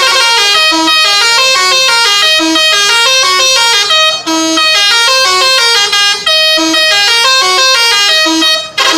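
Bus telolet horn, a set of multi-note air horns, playing a fast tune of stepped notes in several pitches at once. It sounds almost without a break, dipping briefly about four seconds in and again near the end.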